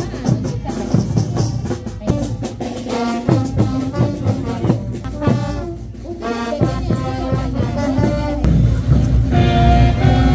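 Live street brass band playing, with horns such as a baritone horn over snare and bass drums. Drum hits lead at first, the horn melody comes in about three seconds in, and the band grows louder and fuller near the end.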